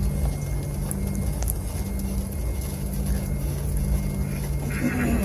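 Jet airliner cabin noise while taxiing: a steady low rumble with an even engine hum and a faint high whine.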